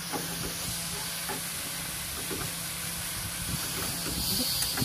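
A steady hiss with a faint low hum underneath and a few light knocks; the hiss grows a little brighter near the end.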